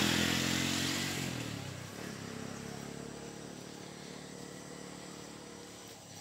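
A motor vehicle's engine passing and fading away over the first two seconds, then a low steady outdoor background.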